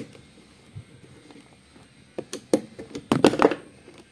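Sharp metal clicks and a short clatter as a tool and the charger's wire leads are worked at the terminal bolts of a small motorcycle dry battery, with the loudest clatter about three seconds in.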